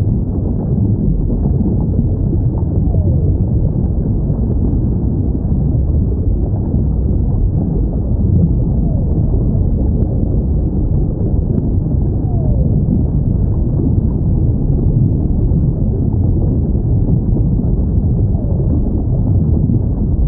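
A steady deep rumble of sea noise with faint whale calls sliding down in pitch, a few times.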